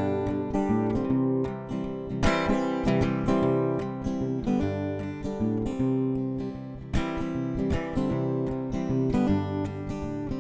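Acoustic guitar playing the instrumental introduction to a sad song, strummed chords and picked notes ringing out, with heavier strums about two seconds in and again about seven seconds in.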